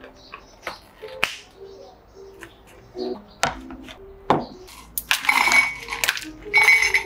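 Clicks of a plastic dome lid pressed onto a plastic cup, then knocks as a glass mug is set down on the counter. About five seconds in, ice cubes are tipped from a scoop into the glass mug in two loud clattering pours, with the glass ringing.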